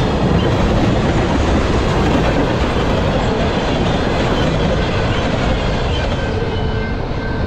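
Freight train's tank cars rolling past at speed, a steady loud rumble with wheels clattering over the rail joints.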